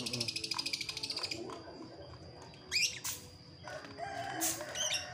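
Birds and chickens calling: a fast chattering trill for the first second and a half, then scattered short chirps, and a lower call about four seconds in.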